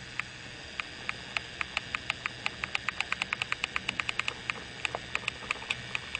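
A rapid series of light, sharp clicks that speed up to about ten a second in the middle, then slow again, over a steady low hum.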